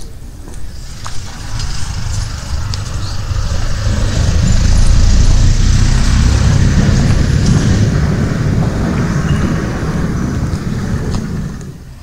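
A motor vehicle driving past, a deep engine and tyre rumble that builds for a few seconds, is loudest in the middle and fades away near the end.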